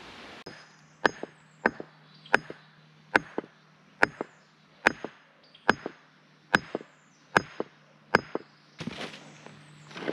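A hand hammer striking steadily at a wet stone-and-concrete footer, about one sharp blow every 0.8 seconds, each followed by a lighter second knock.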